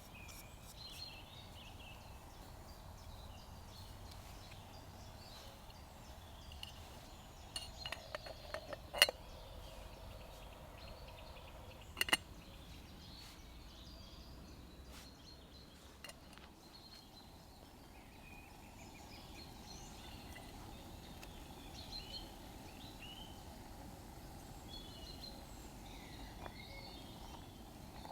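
Woodland birds chirping and singing over a steady background hush, with a cluster of sharp clicks about eight to nine seconds in and another pair of clicks about twelve seconds in.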